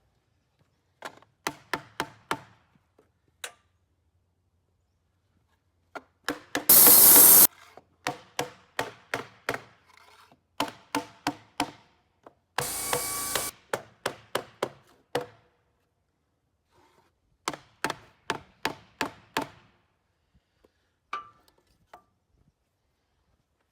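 Runs of four to six sharp knocks, about three a second, each ringing briefly, with two loud bursts of hissing noise about a second long, one about a third of the way in and one about halfway.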